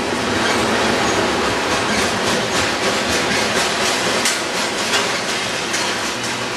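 Intermodal train's container cars rolling slowly past: a steady rumble of steel wheels on rail, with a run of clacks from wheels crossing rail joints, thickest in the middle.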